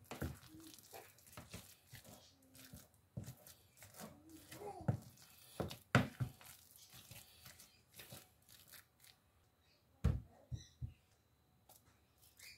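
Wooden spoon working mashed potatoes with grated parmesan and parsley in a bowl: irregular soft scrapes and clicks, with a few sharper knocks, the loudest about halfway through and another a couple of seconds before the end. Brief faint voice sounds come through in the background.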